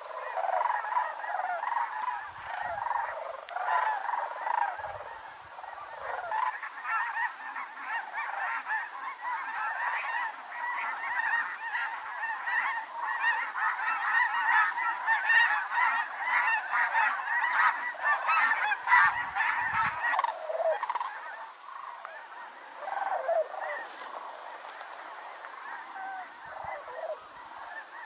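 A large mixed flock of snow geese and sandhill cranes calling, a dense chorus of many overlapping honks and calls. The calls thin out to scattered ones over the last several seconds.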